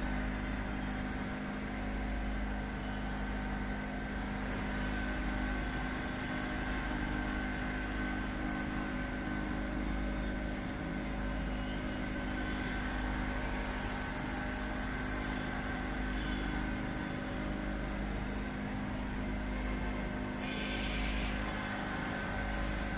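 Steady mechanical hum over a low rumble, with a few constant tones and no change in level; a brief brighter hiss about twenty seconds in.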